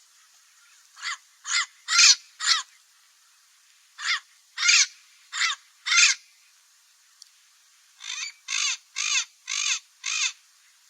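Parrot giving harsh, raspy squawks in three runs: four calls, a pause, four more, another pause, then six in quick succession near the end.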